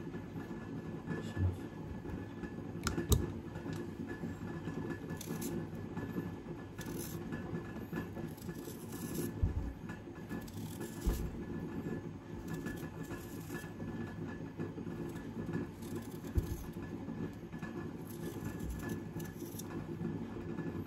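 A steady low mechanical hum with a few short knocks and scrapes of a knife on a cutting board as vegetables are trimmed, the sharpest knock about three seconds in.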